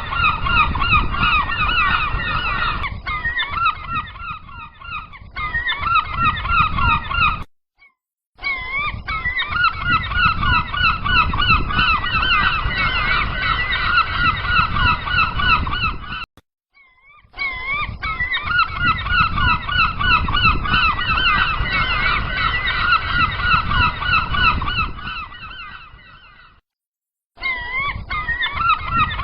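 A flock of gulls calling continuously, many overlapping harsh, wavering cries over a low steady rumble. The sound cuts out completely three times, for about a second each.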